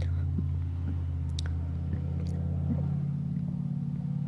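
A man's long, deep burp starting about three seconds in, over a steady low hum and a few small mouth clicks.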